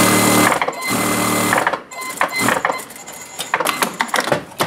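Industrial flatbed sewing machine stitching fabric: two steady runs of about a second each with a brief pause between, then stopping and starting in shorter, uneven spurts.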